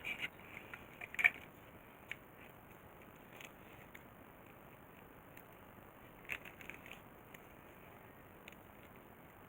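A few scattered small sharp clicks and taps of hand tools and parts handled at a workbench, the loudest about a second in, over a faint steady hiss.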